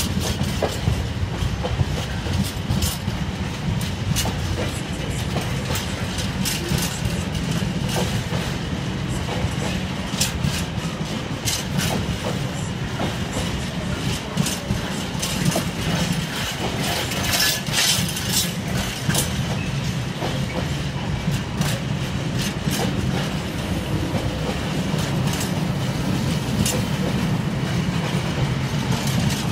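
Empty container flat wagons of a freight train rolling past: a steady low rumble of wheels on rail with frequent sharp clicks and clanks as the wheels cross rail joints and the unladen wagons rattle. A brief stretch of louder clanking comes about halfway through.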